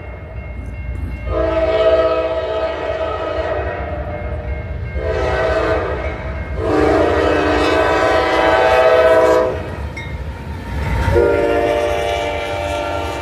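Norfolk Southern freight locomotive's multi-note air horn blowing a long blast, a short one and another long one, then starting again near the end, the pattern of a grade-crossing signal, over the steady low rumble of the diesel locomotives and the train.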